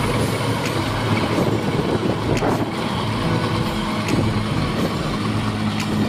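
Kubota DC68G Harvesking crawler combine harvester running steadily while cutting rice: a constant diesel engine hum over the noise of the machinery, with scattered clicks.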